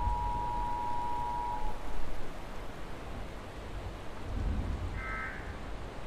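Weather radio sounding the EAS two-tone attention signal, a steady dual tone that cuts off about a second and a half in, over steady synthesized rain. A low rumble comes about four and a half seconds in, and a short higher beep near the end.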